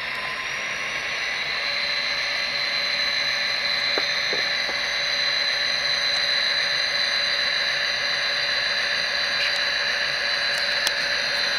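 Tsunami sound decoder in an HO-scale model locomotive playing an EMD 645 diesel with a turbocharger whine through the model's small speaker; the whine climbs in pitch and loudness over the first couple of seconds, then holds steady.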